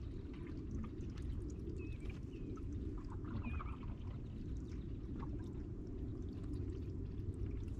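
Canoe paddling: paddle strokes with water splashing, dripping and lapping at the hull, over a steady low rumble. A few short high bird chirps come through, two of them about two seconds in and another a second or so later.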